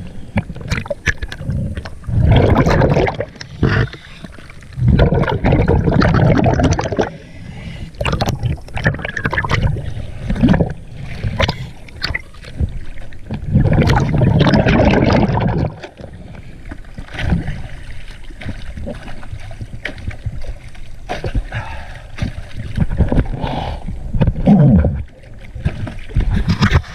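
Sea water sloshing and splashing around a camera bobbing at the surface, in irregular surges, some of them a second or two long and some short and sharp, as the camera dips in and out of the water.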